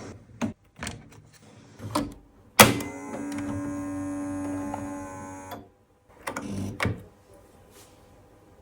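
Mechanical clicks and clunks, then after a sharp clunk a steady electrical hum of several tones for about three seconds that cuts off suddenly, followed by a couple of knocks.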